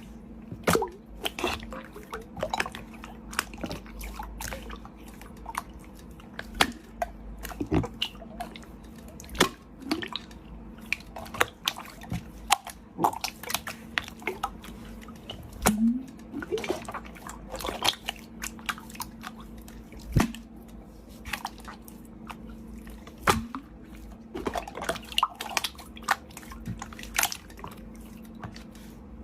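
Slime being squeezed and poked by hand, making irregular wet clicks and pops, several a second, over a faint steady hum.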